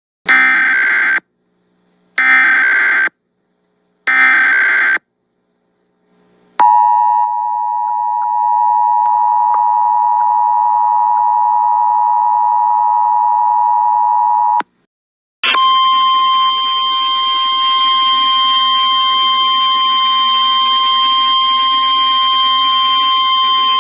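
Emergency Alert System alert opening. Three short screeching SAME data header bursts, about a second each, are followed by the steady two-tone EAS attention signal held for about eight seconds. After a brief gap, a single steady NOAA Weather Radio warning alarm tone sounds, rougher and noisier, for about nine seconds.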